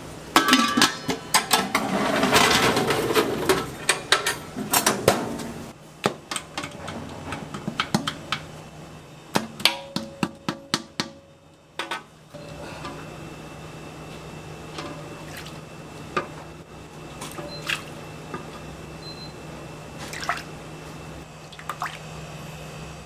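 Food-stall kitchen work: utensils and dishes clattering, with liquid sounds. There is a run of sharp knocks in the middle, then a steady low hum with only an occasional knock.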